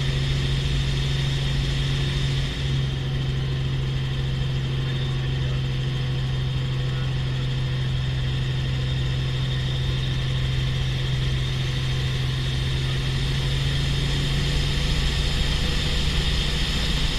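Helicopter engine and rotor running steadily, heard inside the cabin: a constant low drone with a thin high whine above it.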